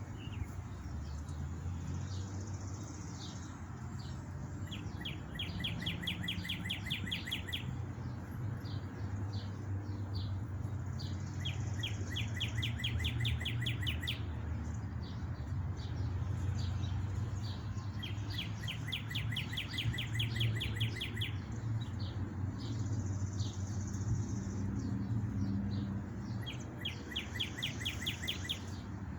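A songbird singing a fast, even trill of repeated notes, four phrases each two to three seconds long, over a steady low wind rumble on the microphone.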